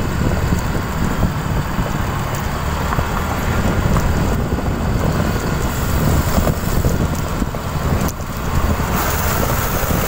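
Wind rushing over the microphone of a moving rider, over a steady low rumble of road and traffic noise.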